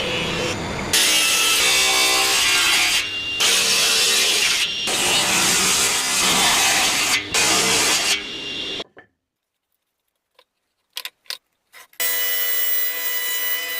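A saw cutting wood in several long passes with short breaks between them. After that comes a pause of about three seconds with a few light knocks, and a steadier machine-like sound starts near the end.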